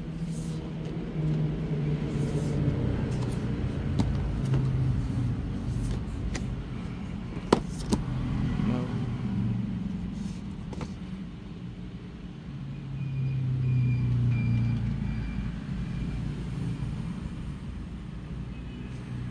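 Low rumble of road traffic, swelling and fading as vehicles pass, with a few sharp clicks over it.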